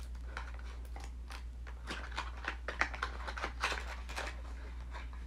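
Small cardboard product box being opened and handled: a string of irregular light clicks, taps and rustles of packaging, over a steady low hum.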